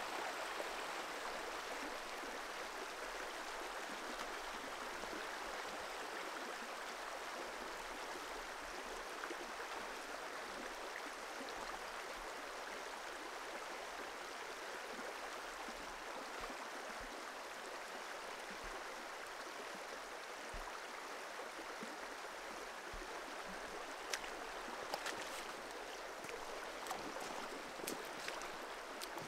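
Shallow river running over stones and gravel, a steady rushing hiss, with a few light clicks near the end.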